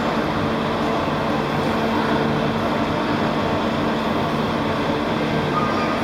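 The Great Elephant of Nantes, a giant mechanical walking elephant, running as it walks: its engine and machinery make a steady, even drone.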